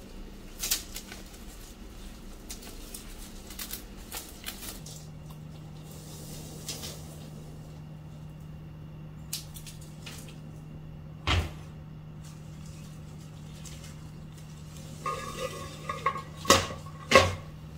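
Bundled dry branches rustling and clicking as they are handled and the twine around them is untied. Stems then knock against a tall vase while being arranged, with a cluster of sharp clinks near the end that ring briefly.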